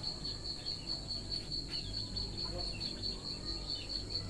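Crickets chirping in a steady, fast, evenly pulsing trill, over a low steady rumble.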